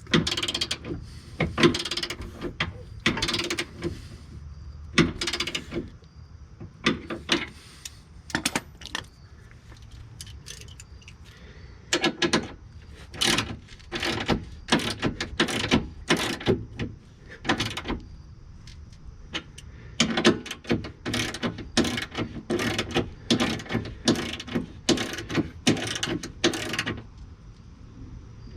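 Ratchet wrench worked on a bolt in bursts of quick strokes, a few a second, with short pauses between bursts.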